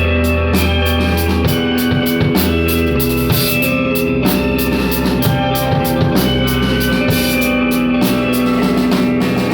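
Instrumental passage of a rock song: a drum kit keeps a steady beat over sustained bass notes and guitar.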